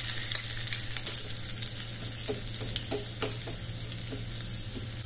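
Chopped garlic and cumin seeds sizzling and crackling in hot ghee in a pan for a tadka, stirred, with a few short scrapes of the spoon between about two and three and a half seconds in.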